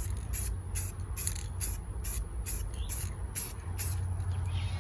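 Aerosol can of bumper and trim spray paint hissing in short, light passes, about two a second, as a first light coat goes on.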